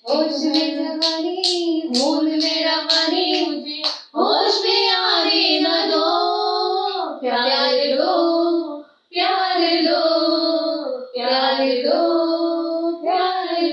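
A woman singing a song without accompaniment, with hand claps keeping time for about the first four seconds. After that she holds several long notes.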